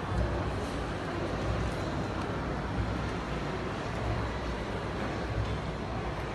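Steady background noise, strongest at the low end, with no distinct single event.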